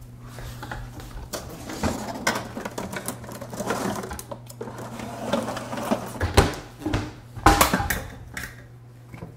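Cookware and utensils clattering and knocking in a kitchen, an irregular run of metal clanks with a couple of louder knocks near the end, over a steady low hum.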